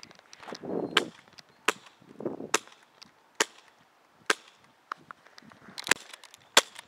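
Airsoft guns firing single shots: about seven sharp snaps, unevenly spaced roughly a second apart. Between the first shots there is some short, softer rustling.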